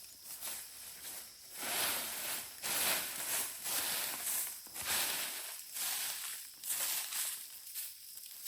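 Irregular rustling and crunching of dry material such as leaves or brush, in uneven bursts, over a steady high hiss.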